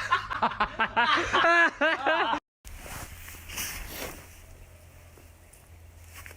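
A person laughing in quick, loud voiced bursts that stop abruptly about two and a half seconds in. After that comes a faint background hiss with a few light clicks.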